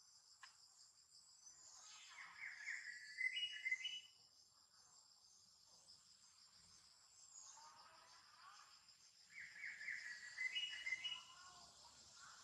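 Insects buzzing steadily in high-pitched chorus, faint. Twice, about 2 seconds in and again near 10 seconds, a short pitched call rises in steps over it.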